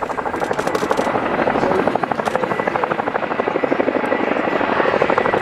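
Helicopter rotor chopping in a fast, steady beat, loud and close.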